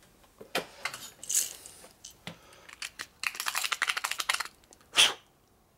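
Small metal hand tools being worked on a socket: scattered clicks and taps, a quick run of rapid clicking, then one sharp metal clink about five seconds in.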